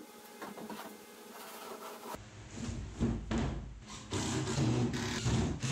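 Cordless drill driving screws through quarter-inch plywood into the workbench's 2x4 frame, in two short runs in the second half.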